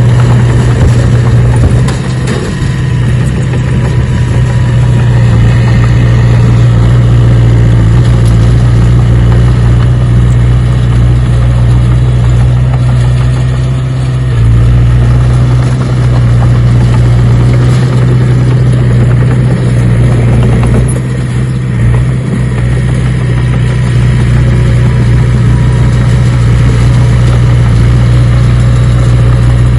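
Engine running steadily with a strong, unchanging low hum, dipping slightly for a moment a few times.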